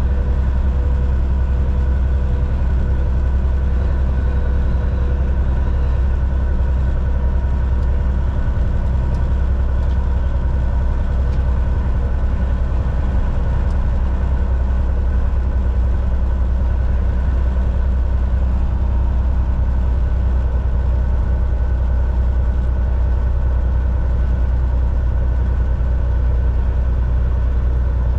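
Semi truck driving at a steady speed on the highway: an unbroken low engine and road rumble with a faint constant whine above it.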